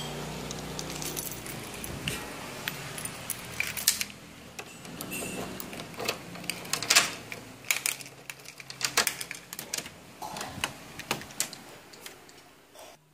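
A steady low hum for the first few seconds, then a run of irregular sharp clicks, clinks and rattles of small hard parts being handled; it all stops abruptly near the end.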